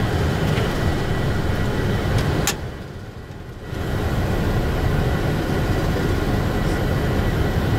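Steady flight-deck noise of a Boeing 747 climbing after takeoff: a low rumble of engines and airflow heard inside the cockpit. About two and a half seconds in there is a click, and the noise drops sharply for about a second before coming back.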